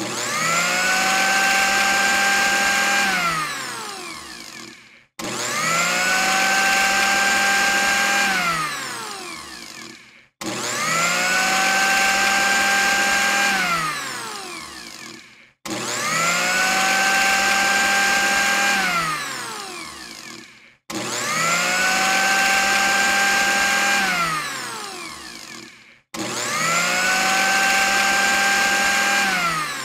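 Electric countertop blender motor spinning up, running at a steady high speed for about three seconds, then winding down with falling pitch as it is switched off. The same run repeats six times, about every five seconds.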